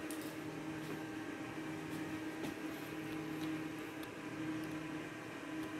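Steady mechanical hum holding an even pitch, with a few faint clicks.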